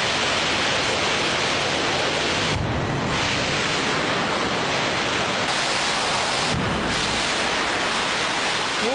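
Artificial flash flood: a torrent of water rushing down a concrete test channel and churning around people standing in its path, a steady loud rush of water. The hiss of the spray briefly thins twice.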